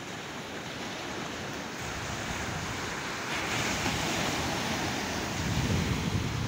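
Sea surf breaking and washing up a sandy beach, a wave crashing a little over halfway through, growing louder, with low wind rumble on the microphone.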